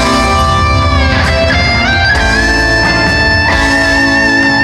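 Live rock band playing loud in an arena, heard from high in the stands, led by electric guitar with long sustained notes over bass; one held note bends up a step about two seconds in.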